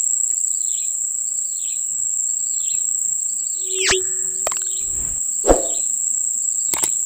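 Steady high-pitched insect drone, with a short falling chirp repeating about twice a second through the first half. About four seconds in, the sound effects of a YouTube subscribe-button animation come in: a swoosh, then clicks and a thud.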